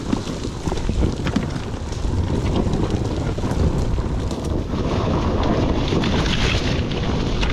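KTM EXC 300 TBI two-stroke enduro bike engine running under load on a trail, muffled through the action camera and mixed with wind buffeting the microphone. The noise gets louder about two seconds in, with scattered sharp knocks.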